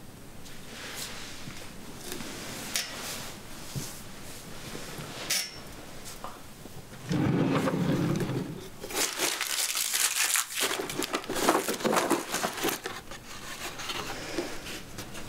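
A bedside-table drawer slides open with a low rumble about seven seconds in. Then comes a busy stretch of rustling and knocking as hands rummage through cables and paper inside it.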